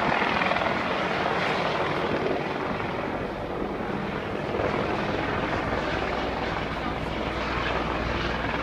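Steady engine drone over a constant rushing noise, with the low hum growing stronger about halfway through.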